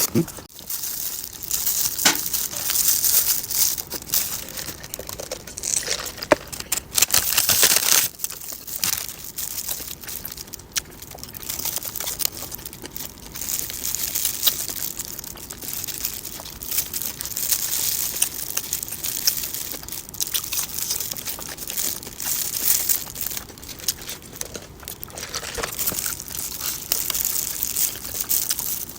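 Close-up crinkling and crushing of a hamburger being handled and eaten, as irregular crackly rustles and sharp clicks that come and go.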